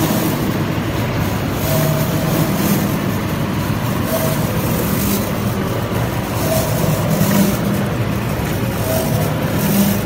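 Steady mechanical noise of a running rotary rice husk carbonization furnace: its electric motor, gear reducer and chain drive turning the drum.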